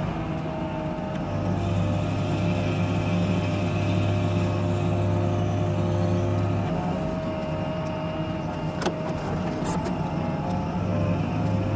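Heavy snow-clearing machinery's engine running steadily, heard from inside a cab, its low hum easing off partway through and picking up again near the end, with two brief sharp knocks a little under a second apart toward the end.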